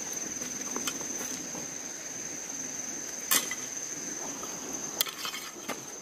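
A steady high insect drone, like crickets or cicadas, with a few sharp clicks or knocks; the loudest knock comes a little over three seconds in.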